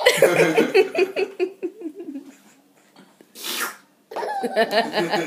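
Baby laughing in quick, chopped giggles. A short hissing burst comes about three and a half seconds in, and the giggling starts again right after it.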